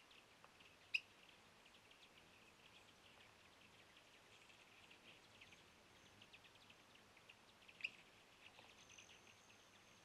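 Faint outdoor natural ambience: a continuous scatter of short, high chirps and ticks, broken by two sharp, much louder clicks, one about a second in and one near eight seconds.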